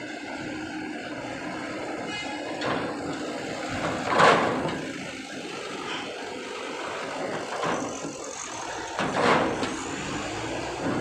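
Diesel light trucks driving off a ferry onto its steel ramp, engines running steadily. Two short loud noises stand out, the louder about four seconds in and another about nine seconds in.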